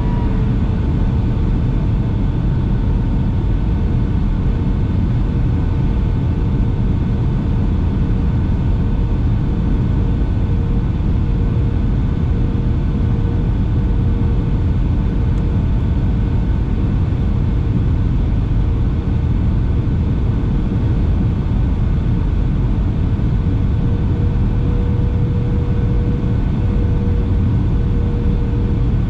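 Steady cabin noise inside a Boeing 757-300 descending on approach: a low rush of airflow and engine drone with a constant hum tone running through it, which rises slightly in pitch near the end.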